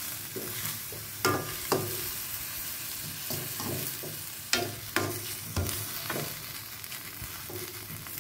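Pork, chilli and lemongrass sizzling in a little water in a non-stick wok while a spoon stirs them, with a steady hiss and about half a dozen sharp knocks and scrapes of the spoon against the pan.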